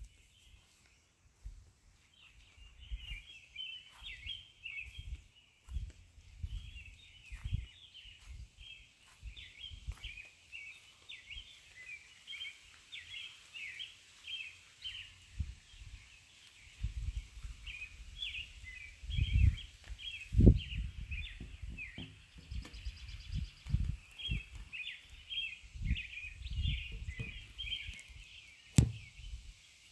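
Small birds chirping busily and without pause, over irregular low thumps and bumps.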